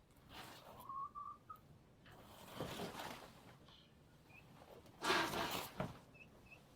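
Chickens calling: a short whistle-like note about a second in and a few faint short chirps. Two bursts of rustling noise come about two and a half and five seconds in, the second louder.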